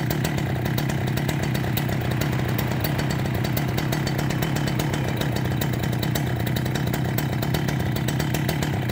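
Husqvarna 395 XP chainsaw, a large single-cylinder two-stroke, running at a steady, unchanging speed.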